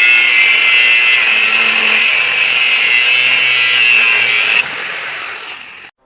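Power tool running steadily with a loud, high whine. About four and a half seconds in it drops off sharply, fades, and stops just before the end.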